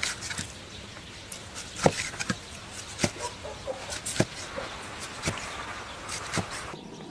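Kitchen knife cutting blanched pork belly into large square chunks on a cutting board: sharp knocks about once a second as the blade strikes the board.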